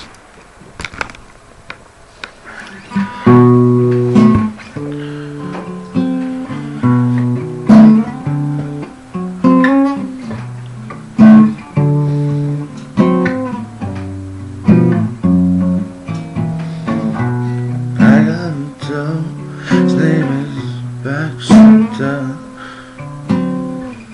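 Acoustic guitar played solo as a song's introduction. A few light plucks open it, then chords are picked and strummed in a steady rhythm from about three seconds in.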